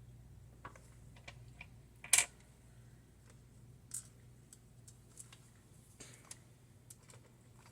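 Scattered light clicks and taps from working on a laptop by hand, with one louder click about two seconds in and another about four seconds in, over a faint steady hum.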